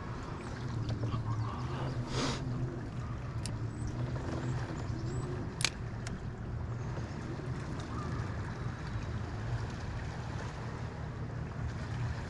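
A steady low mechanical hum, with a few light clicks and knocks, the sharpest about five and a half seconds in.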